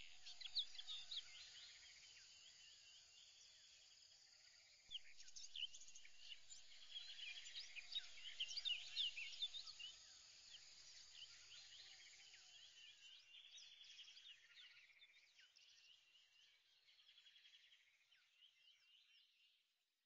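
Faint chorus of many small birds chirping and twittering. It grows busier about five seconds in and fades out near the end.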